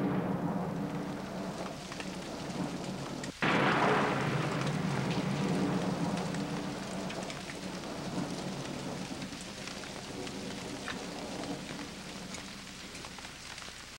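A steady rushing, rain-like noise with a low rumble underneath. It drops out for an instant about three and a half seconds in, comes back loud, then slowly fades.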